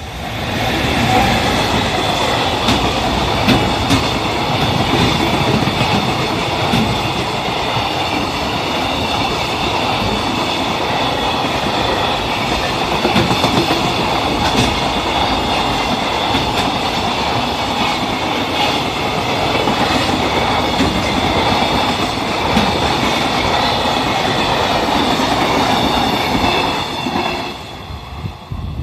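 Freight train hauled by an EF210 electric locomotive passing close by, with a long rake of freight wagons clattering over the rails. The sound swells about a second in, holds steady and loud, and falls away near the end as the last wagon passes.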